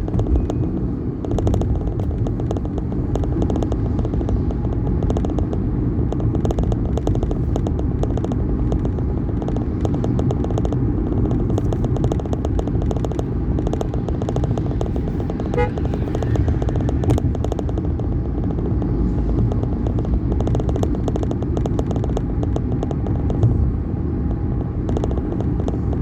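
Steady low rumble of a road vehicle in motion, with crackling wind noise on the microphone.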